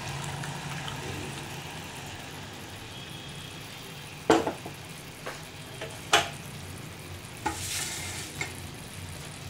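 Jaggery syrup sizzling and bubbling in a hot pan as it is poured in and begins to boil down toward a thick syrup. Two sharp knocks stand out, about four and six seconds in, with a few fainter ones later.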